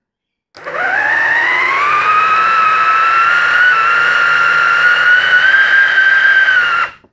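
Small brushed electric motor running the steel pinion against the car's first gear: a high whine that climbs in pitch as the motor spins up, then holds steady and stops abruptly.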